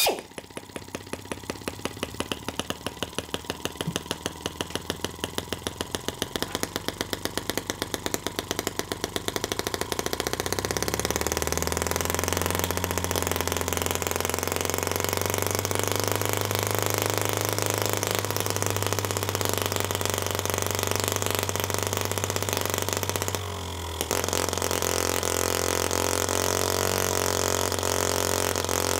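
M12 miniature single-cylinder four-stroke engine running on a hydrogen-oxygen mix. For about the first ten seconds it fires in slow, evenly spaced beats, then it settles into a steady, smooth run with a low hum, briefly dropping in level about 23 seconds in.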